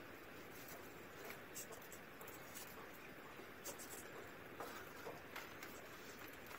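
Faint scratching and light clicks of metal tongs picking up hot coals and setting them on an ash-covered saucepan lid.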